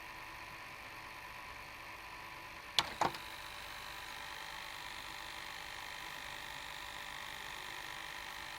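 VCR tape mechanism whirring steadily; about three seconds in, two sharp clicks a quarter-second apart, after which the whir goes on with a higher tone added.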